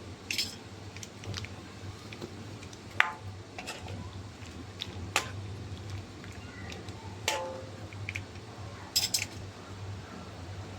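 Kitchen utensils and cookware clinking and knocking: a scattering of sharp clinks, a few of them ringing briefly, over a steady low hum.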